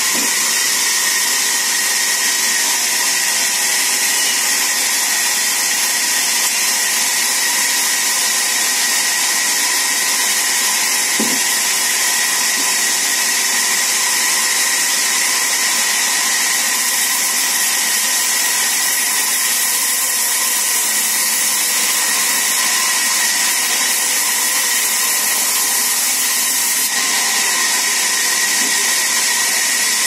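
Sawmill band saw running steadily and cutting mango timber as it is pushed through: a constant high hiss with a steady whine.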